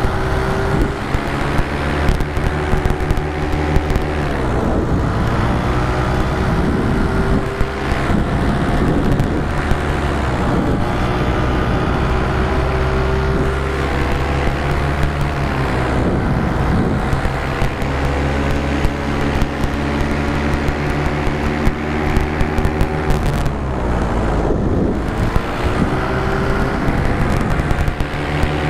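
Paramotor (powered paraglider) engine running steadily in flight, its pitch sagging and then picking up again a few times.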